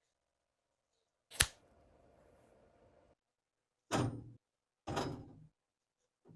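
A sharp metallic click followed by a faint ring, then two duller knocks about a second apart, as metal pistol parts are handled during restoration work.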